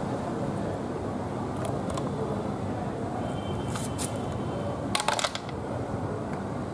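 Land snail shells clicking and clattering as the meat is picked out with a bamboo skewer, a handful of short clicks with a sharper clatter about five seconds in, over a steady low background rumble.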